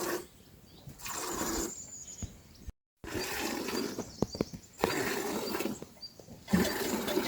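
Livestock calling in a series of short, rough calls, several in a row, broken by a brief gap a little under three seconds in.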